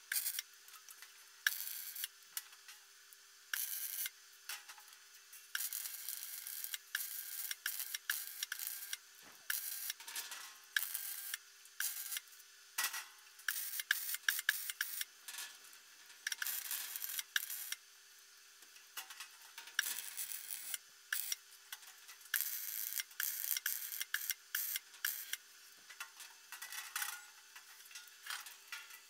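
Electric arc welding of 2 mm mild steel sheet onto a grass topper's frame: short runs of crackling arc, a second or two each, with pauses between the tack and stitch welds. A faint steady hum runs underneath.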